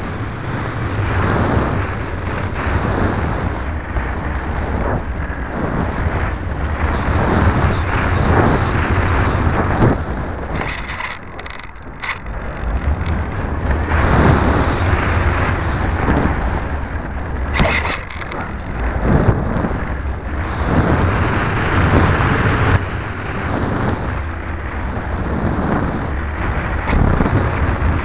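Wind and airflow buffeting the onboard camera's microphone on an Electro Junior RC model plane in flight, a gusty rush over a low rumble that swells and fades, dipping briefly about eleven seconds in.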